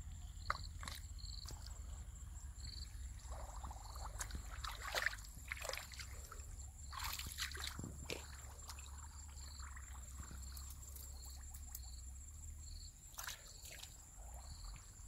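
Hands sloshing and groping through shallow muddy water and soft mud, with irregular small splashes, the strongest about five seconds in and again around seven to eight seconds.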